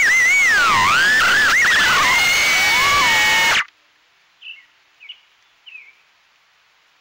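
Mobula 6 HD tiny whoop drone's motors whining, the pitch swooping up and down with the throttle, then cutting off abruptly about three and a half seconds in as the drone comes down in the grass. After that come three faint, short chirps about half a second apart.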